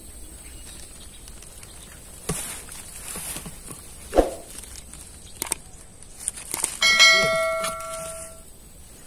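A bell-like metallic ring about seven seconds in, lasting about a second and a half before it fades, after a few scattered knocks and clicks.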